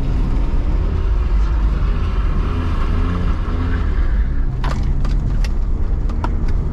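BMW E46 320i's M54B22 inline-six engine running under throttle, its revs rising and falling over a heavy low rumble. A handful of sharp clicks come about two-thirds of the way through.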